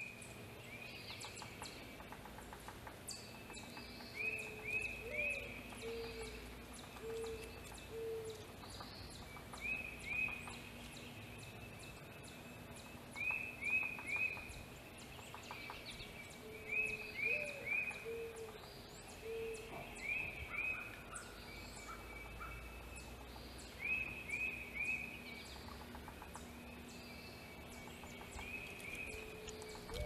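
Wild birds calling outdoors. A higher call of three quick notes comes again every few seconds. A low series of four or five notes, the second rising, repeats about three times.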